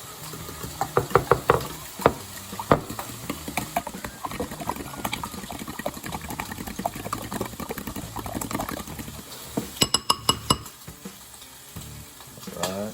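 Raw eggs being beaten hard in a bowl, a fast run of clicks and scrapes of the utensil against the bowl, with bacon sizzling in a pan underneath. About ten seconds in, a few sharper ringing taps on the bowl.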